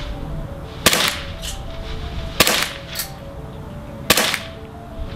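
Secutor Glock 17 Gladius gas blowback airsoft pistol firing three single shots about a second and a half apart, each a sharp crack with a fainter tick just after. Faint background music with short steady notes runs underneath.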